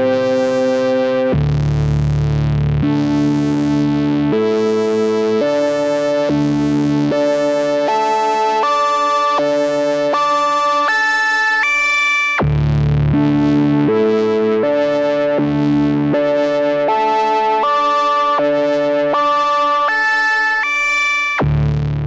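Moog Grandmother analog synthesizer playing a pad patch: a phrase of held, buzzy notes that change roughly every three-quarters of a second and climb in pitch, then start over about twelve seconds in.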